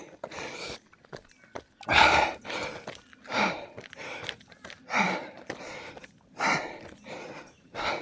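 Heavy breathing of a runner climbing a mountain trail: a loud, hard breath about every one and a half seconds, with footsteps and rustle between.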